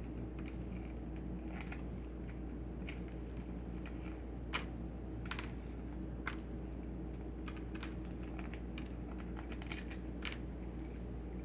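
Hard-boiled eggshell being cracked and peeled by hand: scattered small sharp clicks and crackles, irregular, one louder snap about halfway through, over a steady low hum.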